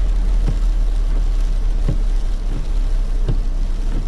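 Steady low rumble of a truck, with a soft thump repeating regularly about every second and a half.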